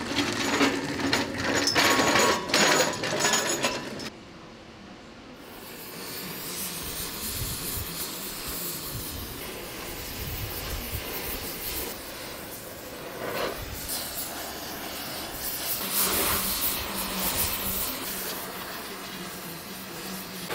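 Oxy-acetylene torch flame hissing steadily as it heats a rusted steel door hinge, expanding the metal so the rust lets go of the hinge pin. The first few seconds hold louder knocks and hiss, and the steady flame hiss sets in after a short lull.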